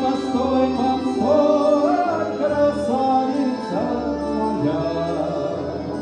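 Live Russian folk music: garmoshka (Russian button accordion) and balalaika playing a song with a male voice singing, and the accordion's bass notes keeping a steady beat.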